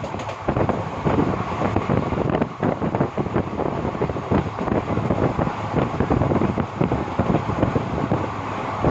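A train running along the line, its rumble and irregular clattering mixed with wind buffeting the microphone.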